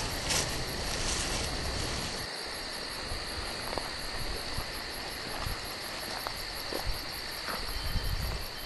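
Steady chorus of insects, crickets or similar, a constant high-pitched buzz. A low rumble in the first two seconds cuts off abruptly, and a few light clicks follow.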